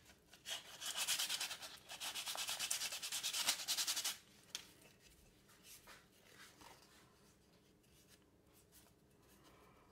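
Sandpaper rubbing by hand over a wooden knife handle in quick back-and-forth strokes for about four seconds, then stopping. A few faint handling sounds follow as the sandpaper is set down.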